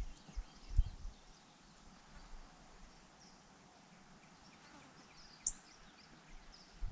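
Quiet open-field ambience with scattered faint bird chirps, one sharper chirp near the end, and a brief low thump about a second in.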